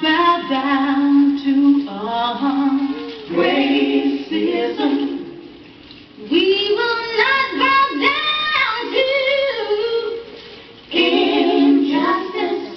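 Female voices singing in phrases, with a break about six seconds in and another near ten seconds.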